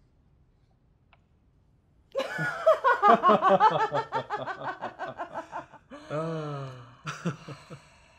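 A woman laughing hard: a quick run of laughs starting about two seconds in, then one long falling laugh and a couple of short snickers near the end.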